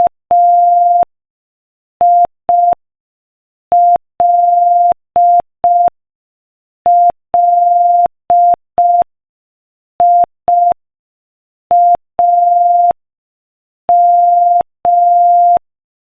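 Morse code sent at 5 words per minute as a single steady beeping tone, switched on and off in short dots and long dashes with longer pauses between letters. The beeps spell out the letters I-L-L-I-A-M, the end of the word "William".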